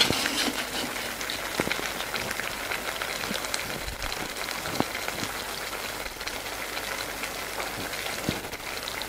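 Steady sizzling and bubbling of a tomato-onion spice masala simmering in a clay pot on a gas stove, with a few small clicks and drips of water.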